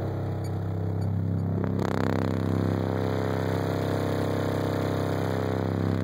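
A GPI Attitude 15 subwoofer, powered by a DC Audio 2.0k amplifier, plays a 33 Hz test tone at full power as a loud, steady drone. It steps up in level about two seconds in, as the amplifier reaches full output.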